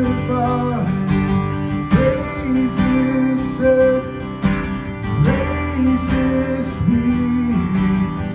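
Acoustic guitar strumming chords in an instrumental passage of a worship song.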